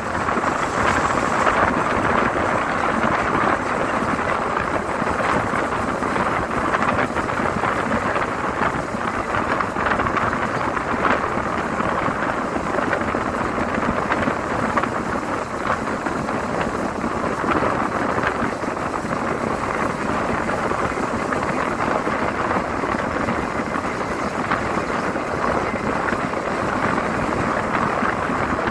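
Steady rush of wind and road noise heard from the window of a moving vehicle travelling at speed, even and unbroken throughout.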